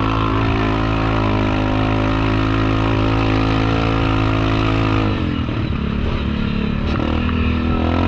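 Yamaha Kodiak 700 ATV's single-cylinder engine running at a steady throttle, easing off about five seconds in, then picking up again near the end.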